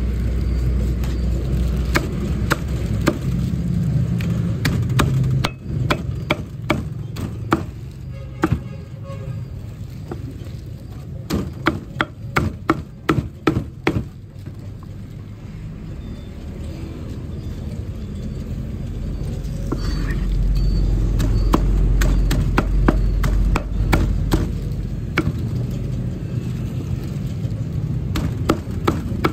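A heavy cleaver chopping roast bird on a thick wooden chopping block: repeated sharp knocks, with a quick run of about two a second partway through. A low rumble sits underneath and swells about two-thirds of the way in.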